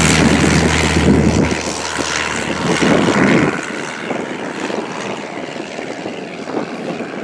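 Propeller aircraft engine running loud, then dropping away sharply about halfway through, leaving a quieter hiss.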